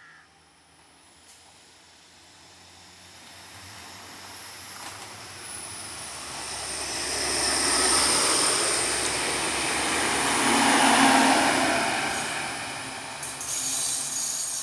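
Alstom Coradia Lint 54 diesel multiple unit (AKN class 622) pulling away and passing close by: engine and wheel-on-rail noise grows steadily louder, peaks as the cars go past, then eases off. A few sharp clicks come near the end.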